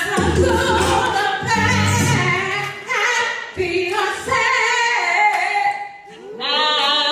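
A woman singing into a handheld microphone, with long held notes that bend up and down.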